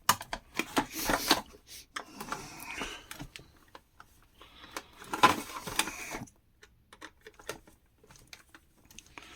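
Clicking, rattling and scraping of the mini fridge's plastic housing being pried and pulled apart by hand, busiest in the first six seconds, then a few scattered clicks.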